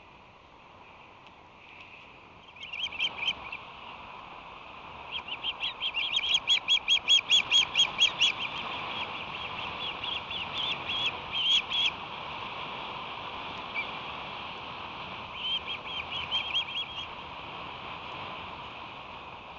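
Ospreys calling: series of short, sharp, high chirps at about four a second, a brief run, then a long loud run, then another short run near the end, over a steady hiss of wind and ambient noise.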